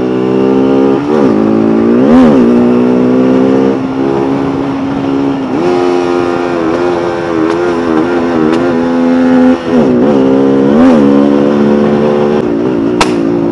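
Bajaj Pulsar NS200's single-cylinder engine running hard at speed under throttle. Its pitch holds steady for stretches and several times dips briefly and climbs straight back.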